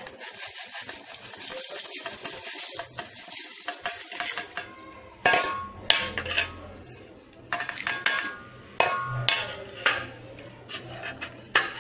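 Whole peppercorns, cumin seeds and garlic tipped from a steel plate into a stainless steel mixer-grinder jar, a rattling patter of seeds on metal for the first few seconds. Then about half a dozen sharp clinks of the steel plate and jar, each ringing briefly.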